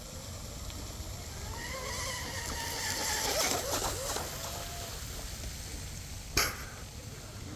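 Electric RC catamaran with a 2948 3450 kV brushless motor running fast past the bank: a high motor whine swells and glides up and down in pitch over a couple of seconds, with spray hiss from the hull, then fades. A single sharp knock comes about six seconds in.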